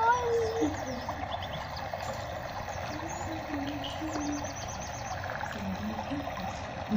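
Small birds chirping over a steady outdoor background hiss, with a quick run of repeated high notes about four seconds in. A brief voice-like sound at the very start.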